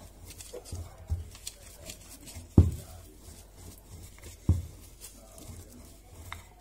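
Wooden rolling pin rolling out shortbread dough on baking paper, with soft rubbing and a few dull thumps as it presses and knocks down; the loudest thump comes about two and a half seconds in, another about two seconds later.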